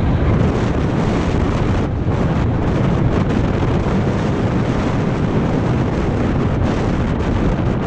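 Wind buffeting the microphone of a helmet-mounted action camera on a fast mountain bike descent, over the steady rumble of knobby tyres rolling on a dirt singletrack, with short rattles and knocks as the bike goes over bumps.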